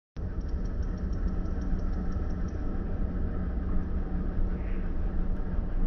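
Truck engine running, a steady low rumble.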